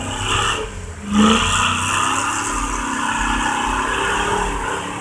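Off-road truck's engine revving hard as it churns through a deep, flooded mud hole, with a steady rush of water and spray from about a second in.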